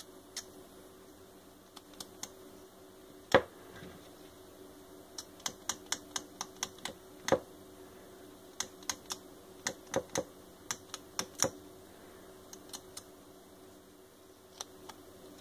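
Irregular sharp clicks and taps from a smartphone and a tempered glass screen protector being handled. The two loudest knocks come about three and seven seconds in, with quick runs of lighter taps between them and near the end.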